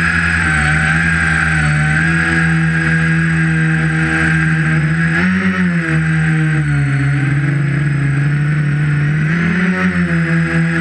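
Tricopter's brushless motors spinning 11-inch propellers, giving a steady drone with a high whine over it. The pitch rises and falls with the throttle: up about halfway through, lower for a while, then up again near the end.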